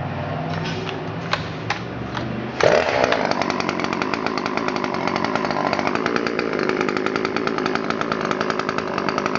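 Husqvarna 338 XPT 39 cc two-stroke chainsaw running. It is quieter for the first two and a half seconds, with a few sharp clicks, then gets suddenly louder and runs on steadily.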